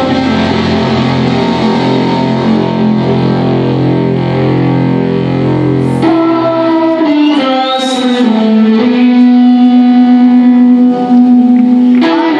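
Rock band playing live, heard from the crowd in a large hall: a distorted electric guitar holds long sustained notes over bass and drums, with a rising bend about seven seconds in.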